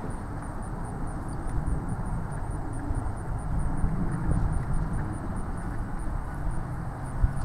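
Steady low rumble of outdoor background noise, with a faint, even high ticking about four times a second.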